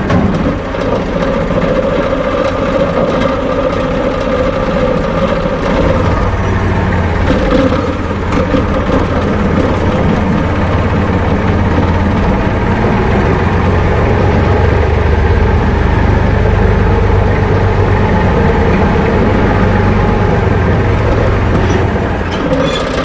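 IMT tractor's diesel engine running steadily as the tractor drives, heard from inside the cab. The engine note shifts and its low hum grows stronger about six seconds in.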